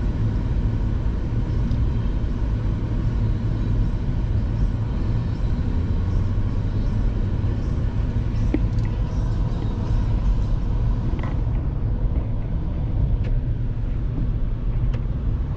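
Car driving along a highway, its engine and tyres making a steady low rumble of road noise, with a few faint ticks.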